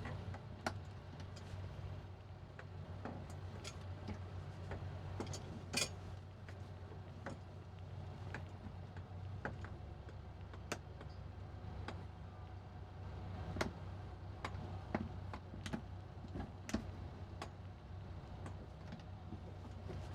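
Steady low hum of a boat engine idling, with scattered irregular clicks and ticks over it; one sharper click about six seconds in.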